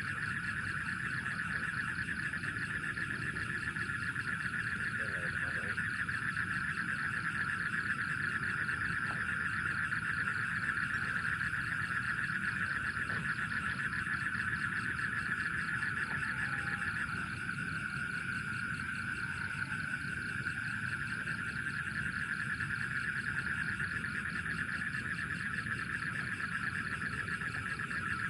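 Steady night chorus of insects and frogs, a dense, continuous trilling that shifts slightly in pitch about two-thirds of the way through.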